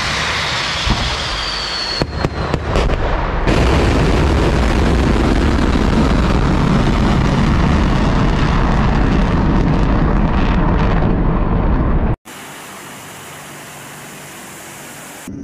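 Ballistic missile rocket motor at launch: a loud, steady roar with a deep rumble, a rising whine in the first two seconds and a few crackles, lasting about twelve seconds and then cutting off abruptly. It is followed by the quieter, steady running of a Tu-95 bomber's turboprop engines with contra-rotating propellers turning on the ground.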